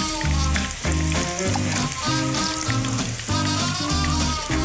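Chickpea fritters sizzling as they fry in very hot oil in a pan, under background music with a steady beat.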